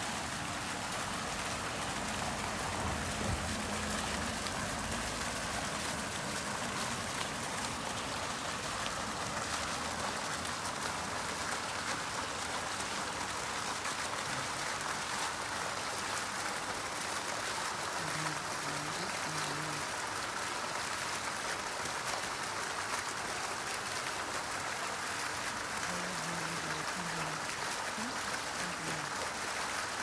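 Several vertical water jets of a fountain falling steadily back into their basin, a constant splashing.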